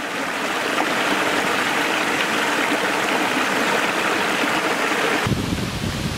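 Small mountain stream pouring over mossy boulders in little cascades into a pool: a steady, even rush of running water. About five seconds in it gives way to a lower, more uneven rushing noise.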